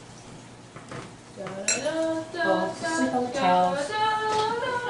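A voice singing a wordless tune with held notes, starting about a second and a half in, over a few light clinks of utensils and a glass baking dish.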